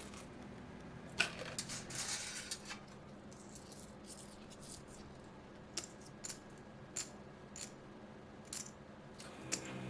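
Casino ambience without voices: a sharp clink about a second in, then a second or so of small rattling clinks, then scattered single sharp clicks over a faint steady hum of the room.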